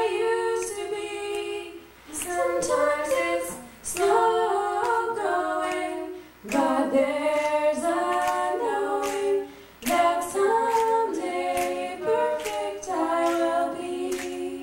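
Two women singing unaccompanied into microphones, in harmony, in phrases of two to four seconds with short breaks between them.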